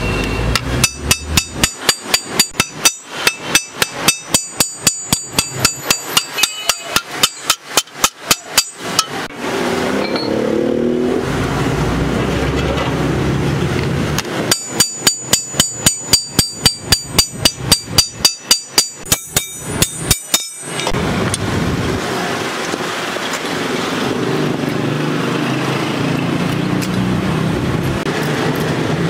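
Steel hammer striking a strip of sheet steel on a steel anvil block, shaping a patch for a holed motorcycle fuel tank. The blows ring and come about three a second, in two long runs with a pause of several seconds between them. A steady rumble of street traffic fills the gaps.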